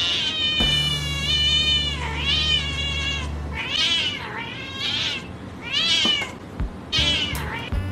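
A cat meowing over and over: one long drawn-out meow, then about five shorter meows, each rising and then falling in pitch.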